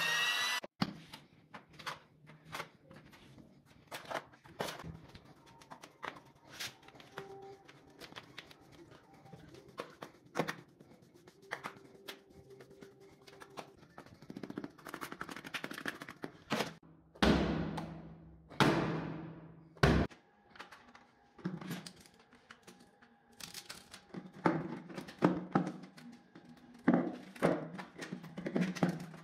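A power drill with a mixing paddle stops just after the start. Then come irregular handling noises: knocks, taps and scrapes of hands and a metal tray on a hard floor as a damp granular mixture is pressed into the tray. A couple of louder scrapes and thuds come past the middle.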